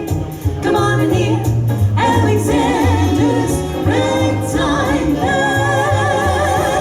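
Female vocal group singing a vintage 1940s-style song in close harmony over a band with a walking bass. Near the end they hold a long chord with vibrato.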